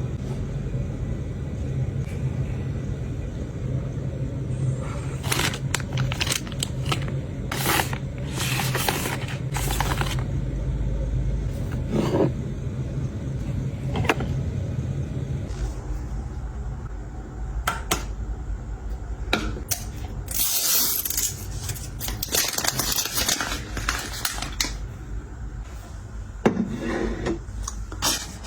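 Containers and items being handled and set down during restocking and organizing: irregular clicks, taps and short scraping or rustling passages. A low steady hum runs under the first half and stops about halfway through.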